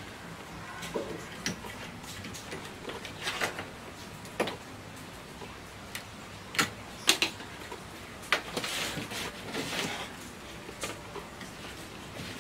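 Scattered clicks, taps and light knocks at irregular intervals as the wire connectors and circuit board of a CRT television's chassis are unplugged and handled, with a short scraping rustle about two-thirds through.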